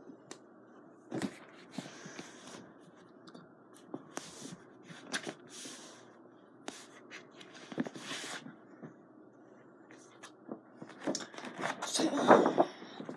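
Intermittent rustling and light handling noises of a paper poster and sticky tack being worked by hand, with a louder burst of paper rustling near the end as the poster is lifted.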